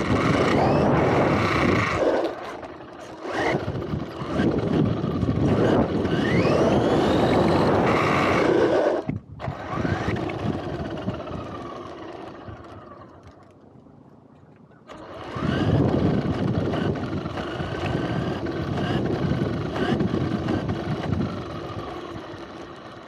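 RC car driven over rough concrete: its motor whine rises and falls with the throttle over a rumble of tyres and chassis rattle. The sound drops off sharply about nine seconds in, dies down, then picks up again about fifteen seconds in and fades near the end.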